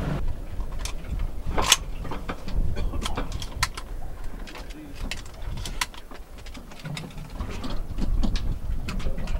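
A raft of common eiders on the open sea, the drakes giving soft cooing calls, many short calls scattered over a low rumble of wind and water.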